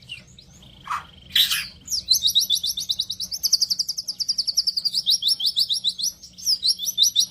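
White-rumped shama (murai batu) singing: two short calls in the first couple of seconds, then a long, fast, rattling run of high repeated notes, about ten a second.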